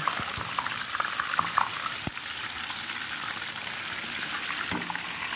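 Chicken pieces shallow-frying in hot oil in a cast iron skillet: a steady sizzle with scattered crackles and pops, most of them in the first couple of seconds.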